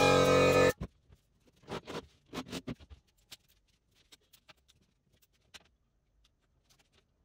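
A loud steady drone cuts off abruptly under a second in. It is followed by quiet taps, knocks and scrapes as wooden boards and a metal straightedge are handled on a table saw top, with a small cluster of knocks about two seconds in.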